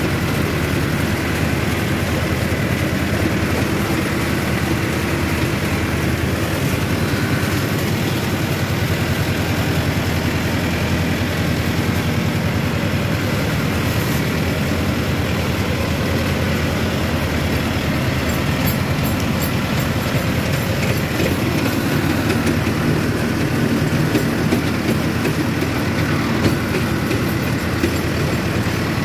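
Mahindra Arjun Novo tractor's diesel engine running steadily while the tractor is driven.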